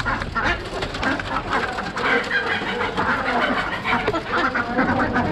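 A crowd of caged domestic ducks quacking over one another, with chickens clucking in the mix: many short calls overlapping without a break.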